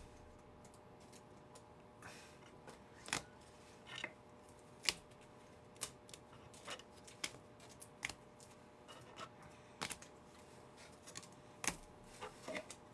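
Faint, irregular clicks and taps of trading cards and plastic card holders being handled and set down on a table while cards are sorted.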